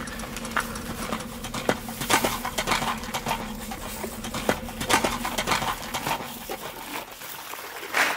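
Horse hooves clip-clopping in an irregular run of sharp clops, about two to three a second, thinning out and fading near the end.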